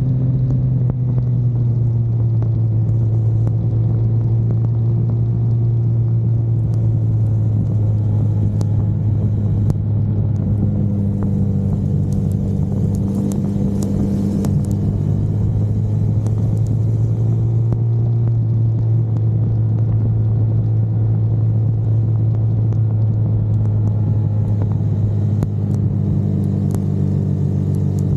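Car engine under way, heard from onboard: a loud, steady low drone whose pitch drifts slightly up and down as the revs change, over a haze of road and wind noise.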